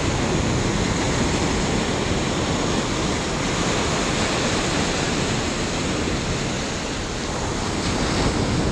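Small surf breaking on a sandy beach, with foamy wash running up the sand close by: a steady rush that swells a little near the end as a wash comes in around the feet.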